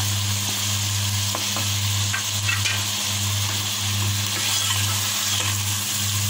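Mutton pieces and freshly added chopped tomato sizzling in oil in a metal pot, with a wooden spatula stirring and scraping and a few light clicks, over a steady low hum.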